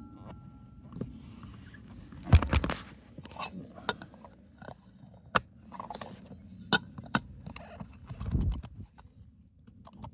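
Small metal parts clicking, clinking and knocking as a relief valve is handled and reassembled by hand. There are two heavier knocks, about two seconds in and near the end, over a low steady hum.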